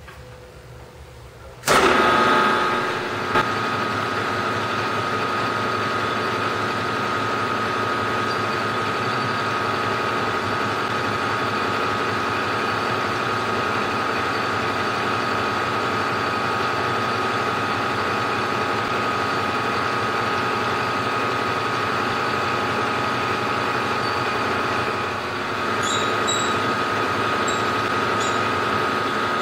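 Milling machine starting abruptly about two seconds in, then running steadily with a whine while an end mill cuts the end of a clamped steel flat bar, squaring it up. The sound dips briefly near the end.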